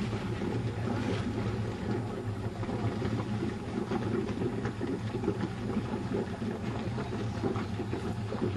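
Meos ski boat's 350 Chev small-block V8 idling steadily in gear as the boat creeps out, taking up the tow-rope slack before a waterski start.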